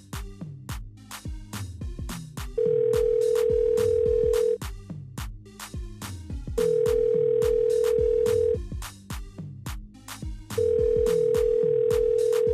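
A phone ringtone playing: an electronic dance beat with a loud steady beep tone laid over it, each beep about two seconds long, sounding three times about four seconds apart.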